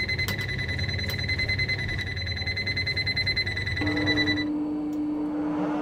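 Electronic alarm buzzer giving a steady, high, fast-pulsing tone that cuts off abruptly after about four seconds. A low steady tone takes over near the end.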